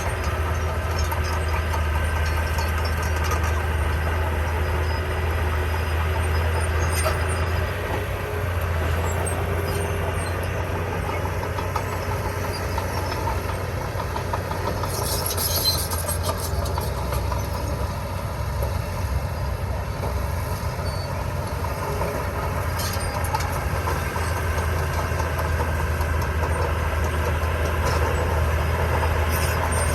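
Diesel engine of heavy construction equipment running steadily under load, with occasional clanks and a short burst of high noise about fifteen seconds in.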